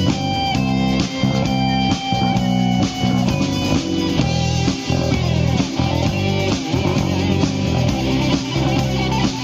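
Rock band playing an instrumental break without vocals: guitars carry a melody over bass and a steady beat.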